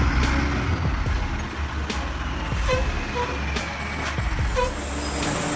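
Heavy truck engine running steadily, with a few short beeps around the middle.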